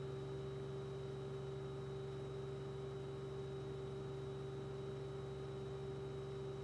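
A steady, unchanging hum with a faint hiss underneath, no distinct events.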